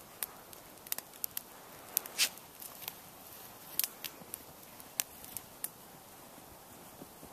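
Small campfire of tinder, twigs and spruce limbs crackling, with sharp irregular pops, one louder pop about two seconds in.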